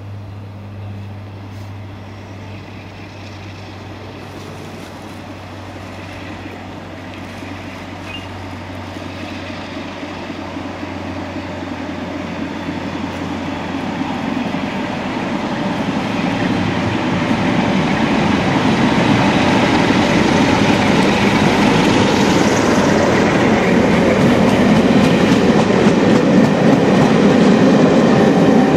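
British Rail Class 47 diesel locomotive drawing a passenger train through a station. The sound grows steadily louder as it approaches and the coaches roll past, with wheel-on-rail noise loudest near the end.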